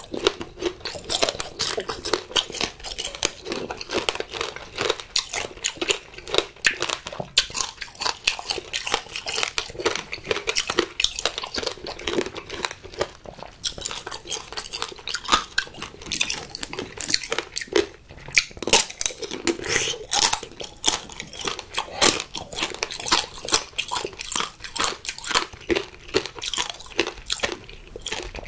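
Chewing tanghulu, fruit coated in a hard, glassy sugar shell: dense, irregular crunching and cracking of the candy shell.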